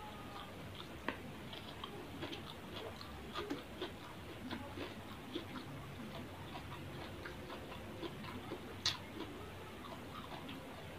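Eating by hand from a paper food wrapper: scattered soft clicks and smacks of chewing and of fingers picking at grilled fish and rice on the paper, with one sharper click about nine seconds in.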